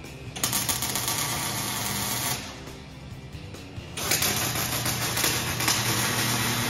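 MIG welding on an aluminum grill frame: two welding runs, each a steady arc hiss of about two seconds, with a pause between them. Background music plays underneath.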